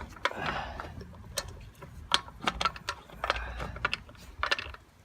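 Irregular metallic clicks and scraping as a wheel's lug fasteners are run in and snugged down, a ratchet-like ticking among them.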